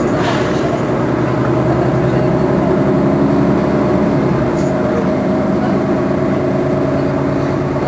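Mercedes-Benz Citaro Facelift city bus engine idling steadily.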